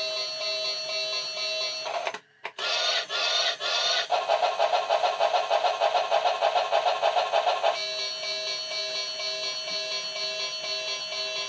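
Built-in steam-locomotive sound effect of a Lionel Hudson 700E train lamp: a short wavering whistle, then rapid chuffing at about eight beats a second for nearly four seconds. Before and after it, a steady electronic tone plays.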